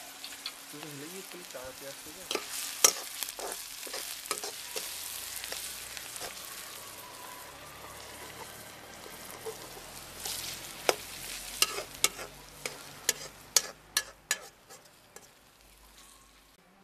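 Chopped onions and green chillies sizzling in hot oil in a kadai, with sharp metal clinks as a slotted steel spoon stirs and scrapes the pan, a few early on and a run of them, one or two a second, in the second half.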